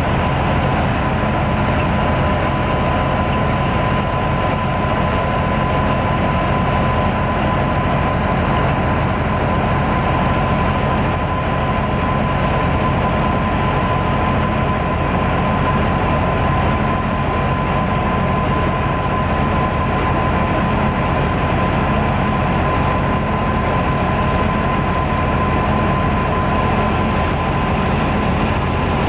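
Tractor-driven thresher running steadily, powered through a shaft by a New Holland 480 diesel tractor: a continuous loud mechanical drone of engine and machine with a thin steady whine over it.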